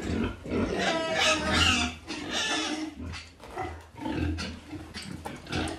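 A sow grunting repeatedly, in short calls about a second apart.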